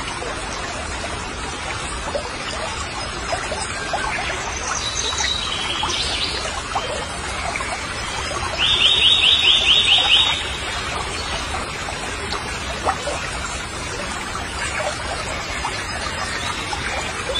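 Steady outdoor background hiss. A bit past the middle, a loud, high-pitched trill of about eight quick even pulses lasts under two seconds.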